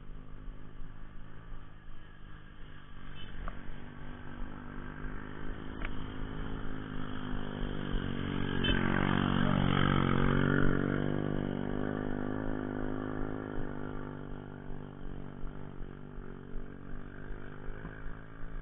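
Small motorcycles riding past close by. The engine sound builds, is loudest about halfway through, then fades away as they go on up the road.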